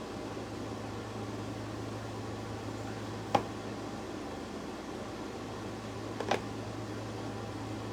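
Steady low mechanical hum of room background noise, with two short sharp taps, one about three seconds in and another about six seconds in, from small objects handled on a work surface.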